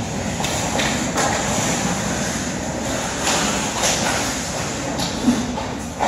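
Ice hockey in play: skate blades scraping the ice and sticks clacking, over a steady rink rumble, with several short sharp scrapes.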